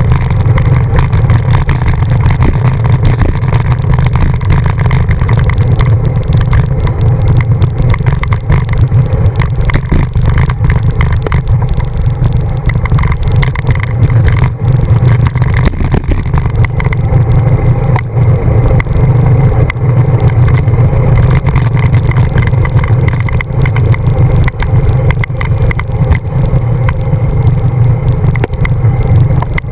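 Steady, loud low rumble of wind buffeting the microphone of a handlebar-mounted camera on a road bicycle riding at speed.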